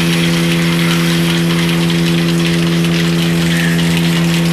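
A machine's engine or motor running steadily at constant speed, a loud even hum with a hiss over it.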